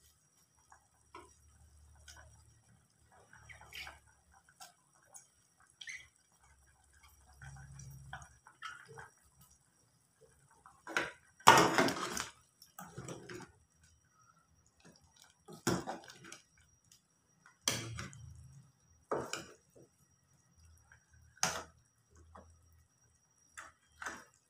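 A steel ladle stirring soup in a pressure cooker pot, knocking and scraping against the metal sides with liquid sloshing, in a run of sharp clinks loudest about halfway through and then single knocks every couple of seconds. Before that, faint soft rustling as chopped greens are dropped into the soup.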